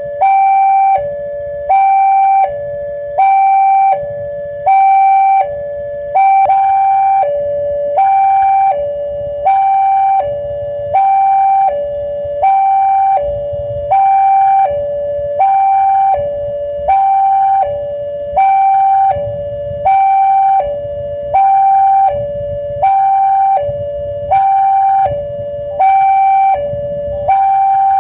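Railway level-crossing warning alarm sounding a steady two-tone chime, high then low, repeating about once a second, the signal that a train is approaching. A low rumble sits underneath.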